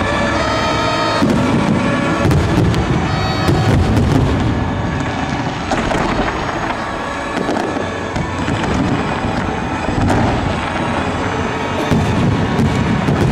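Fireworks going off in quick succession, a dense run of bangs and crackles over a low rumble, with music playing underneath.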